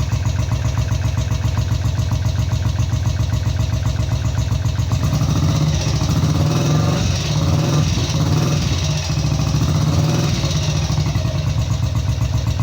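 BSA C15's single-cylinder four-stroke engine running at a fast idle, the revs raised for a few seconds around the middle.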